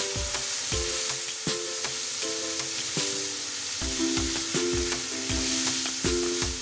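Sliced bitter gourd sizzling as it is stir-fried in a hot oiled wok and tossed with a wooden spatula. Background music with a steady beat plays over it.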